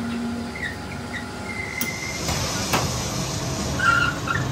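A three-jaw lathe chuck being turned by hand and tightened with its chuck key onto a drive shaft: two sharp metal clicks and a few short squeaks, over steady workshop noise.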